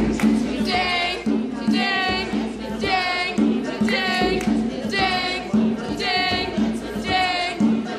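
A group of voices singing a rhythmic, repeated song: a short, high, wavering note comes about once a second, alternating with lower notes in between.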